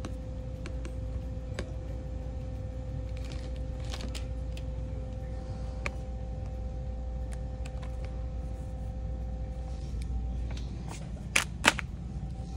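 Store room tone: a steady low rumble with a faint hum, and scattered light clicks from handling. Two sharp clicks come close together near the end.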